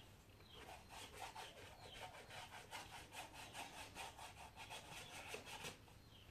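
Faint, rapid back-and-forth scraping strokes of a hand tool working on something on the floor, like sawing, about four or five strokes a second. They start about half a second in and stop near the end.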